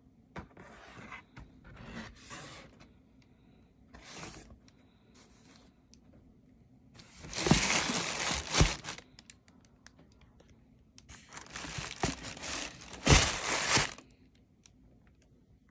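Tissue paper crinkling and a cardboard shoebox rustling as a pair of safety boots is unpacked. The sound comes in bursts: faint at first, then two loud stretches about halfway through and again near the end.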